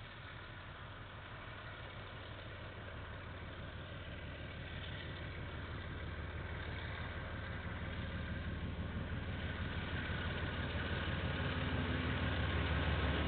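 KiwiRail diesel locomotive approaching, its engine growing steadily louder as it nears, heard through a security camera's microphone.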